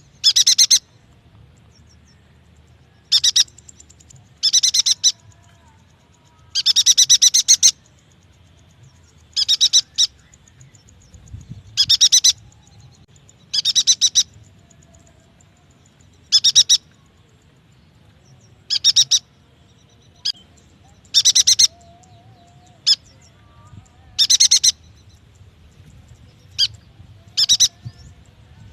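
Yuhina singing: a run of short, high, rapidly trilled phrases, repeated every second or two.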